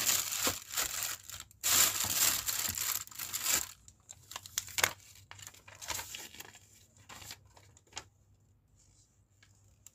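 Clear plastic bag wrapping crinkling and rustling as a wrapped microphone accessory is pressed down into its foam-lined box, loud for the first three and a half seconds, then a few faint rustles and clicks.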